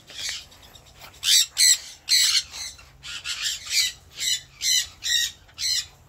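Parrots squawking: a quick series of about a dozen short, shrill, harsh calls, roughly two a second.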